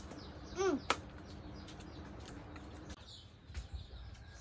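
Faint outdoor ambience with small birds chirping. About half a second in, a short call rises and falls in pitch, followed by a sharp click just under a second in.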